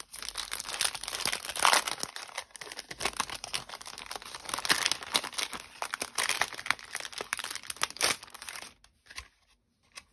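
Clear cellophane packaging crinkling as a cardstock ephemera pack is handled and pulled out of its plastic sleeve, in many quick crackles that stop near the end.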